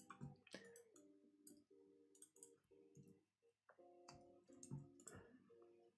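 Faint computer keyboard and mouse clicks, scattered and irregular, as code is copied, pasted and edited, over quiet background music.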